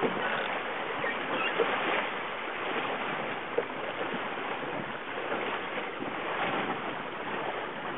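Water rushing and splashing along the hull of an 18-foot skiff under sail, with wind blowing on the microphone. A couple of short sharp knocks stand out.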